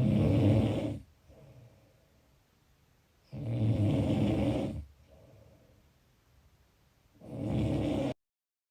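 Snoring: three loud snores about three and a half seconds apart, with quiet breathing between. The last one cuts off suddenly into dead silence near the end.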